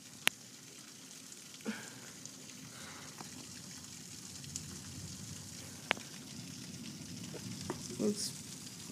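Heavy rain pouring, heard from indoors through window glass as a steady hiss, with a couple of sharp clicks, one just after the start and one about six seconds in.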